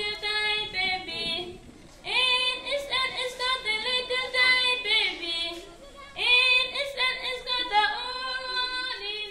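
Unaccompanied high-pitched singing in long phrases, with short breaks about two seconds and about six seconds in.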